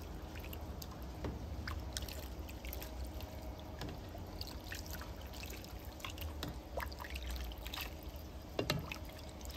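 Dark soy sauce braising liquid bubbling in a pot around a whole chicken, with scattered small pops over a steady low rumble.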